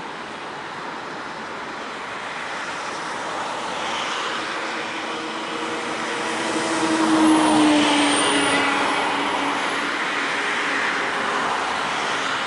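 Jet engines of a Boeing 737-800 (CFM56 turbofans) rolling out on the runway after landing. A steady rushing roar swells to its loudest about seven to eight seconds in, with a falling whine, then eases a little.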